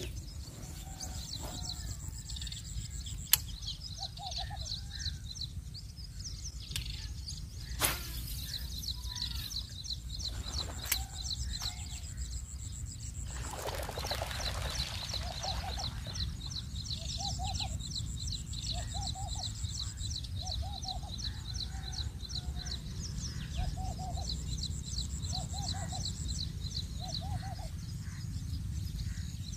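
Birds calling: a fast, high chittering trill throughout and, in the second half, a short lower call repeated about once a second, over a low steady rumble. A few sharp clicks come in the first half, and a brief rush of noise about halfway through.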